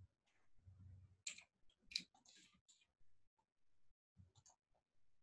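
Near silence, broken by a few faint, scattered clicks.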